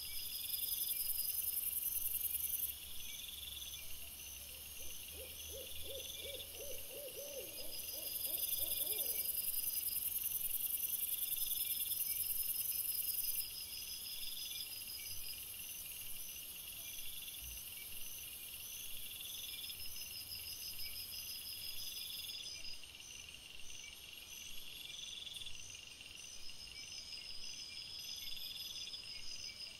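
Night insect chorus: crickets and bush-crickets trilling in short repeated pulses. A louder, very high hiss sounds briefly near the start and again for about five seconds in the first half. For several seconds in the first third, a low quavering hoot sounds under the trills.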